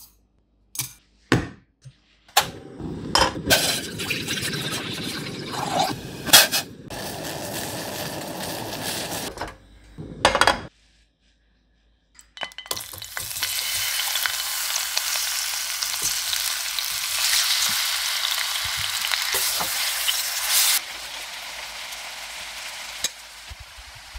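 A few sharp taps in a steel mixer-grinder jar, then about eight seconds of uneven noise from the jar. After a short silence, fat melting and sizzling in a stainless steel pan, a steady hiss that softens a few seconds before the end.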